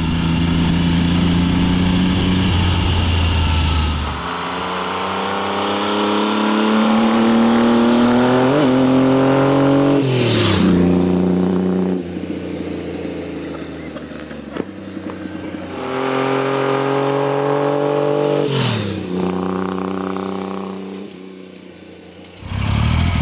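BSA Rocket 3 three-cylinder motorcycle engine running under way, then pulling hard with a steadily rising pitch and passing by with a sharp drop in pitch, twice, the second time fading away into the distance.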